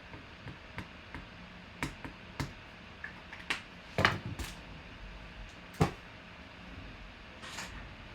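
A series of scattered clicks and knocks from trading cards and plastic card holders being handled on a table, loudest about four seconds in and again near six seconds, with a soft brushing sound near the end.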